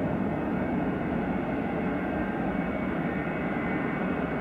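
McDonnell Douglas MD-82's two rear-mounted Pratt & Whitney JT8D turbofans running at low taxi power as the airliner rolls slowly on the taxiway. It is a steady rumble with a faint whine above it.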